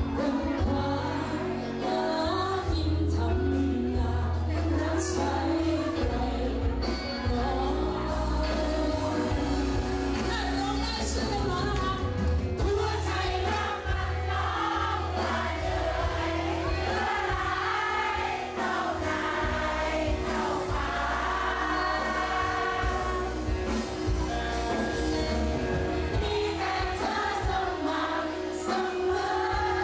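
A song performed live: a woman singing into a handheld microphone over a backing track with a steady bass line.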